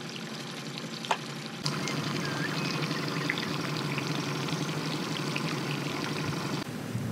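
Lake water lapping and splashing against a small boat's hull, with one sharp click about a second in.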